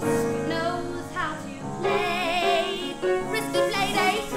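Musical-theatre song being sung with accompaniment; about halfway through, a voice holds a note with vibrato.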